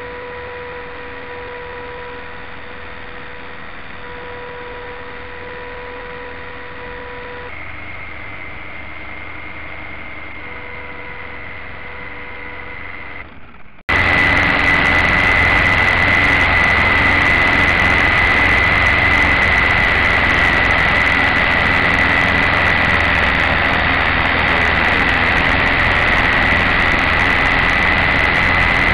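Mini RC helicopter's small electric motor and rotor running with a steady high whine. About halfway through the sound cuts abruptly to a louder, harsher stretch of the same steady whine.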